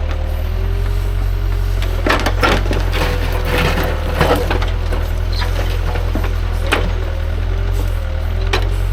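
Diesel engine of compact earthmoving equipment running steadily while its bucket scrapes and knocks against rocks and dirt, with a cluster of knocks and scrapes a couple of seconds in and another near the end.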